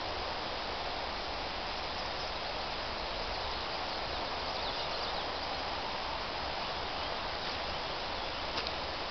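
Steady outdoor background hiss with a low rumble underneath, and a couple of faint clicks near the end.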